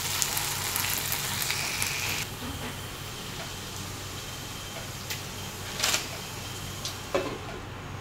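Diced potatoes, ham and onion sizzling in oil in a pan, stirred with a wooden spatula for about the first two seconds, after which the sizzle settles lower. A few sharp knocks come in the second half, and near the end a glass lid goes on the pan and the sizzle turns duller.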